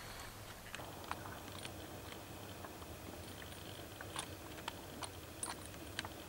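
Faint, irregular clicks and ticks of small stones knocking together on scree, a dozen or so scattered sharp ticks with a few brief high chirps among them.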